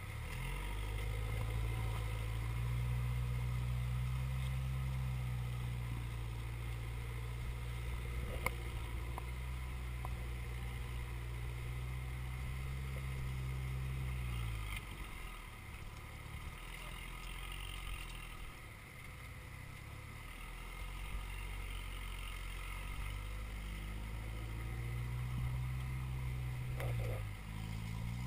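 Rock buggy's engine pulling steadily under load on a steep climb for about fourteen seconds, then dropping off, and building again near the end. A single sharp knock about eight seconds in.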